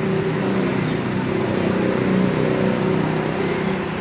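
Steady low drone of a running machine: a low hum with a second, higher hum above it, wavering slightly in strength.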